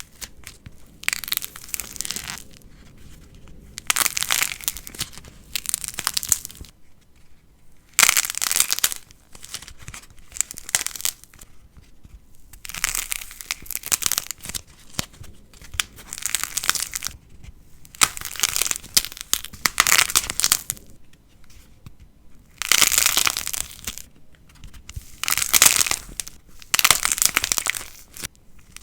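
Light plasticine being squeezed and pulled by hand, crackling in repeated bursts of a second or two with short pauses between.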